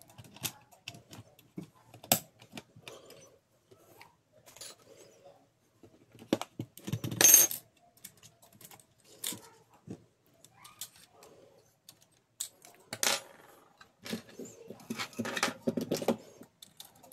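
Plastic and metal parts of a Canon i-SENSYS LBP6670dn laser printer's fuser unit clicking, knocking and rattling as it is taken apart by hand. There is a louder, ringing clatter about seven seconds in and a quick run of clicks near the end.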